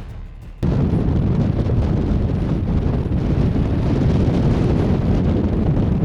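Strong wind buffeting the microphone of a camera on a small sailing dinghy, a steady low noise that cuts in suddenly about half a second in.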